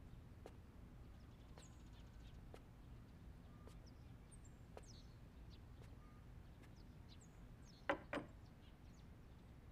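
Near-quiet room tone with faint, scattered bird chirps. About eight seconds in, two quick knocks as a tray of bowls and plates is set down on a wooden table.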